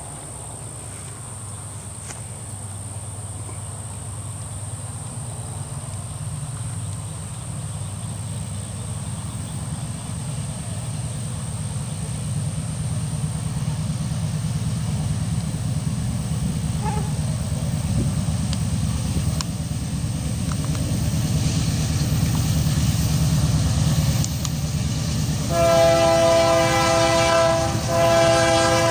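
Approaching Union Pacific diesel freight train, its low rumble growing steadily louder. About 25 seconds in, the locomotive's multi-chime air horn sounds as a chord of steady tones, in two blasts with a short break between them.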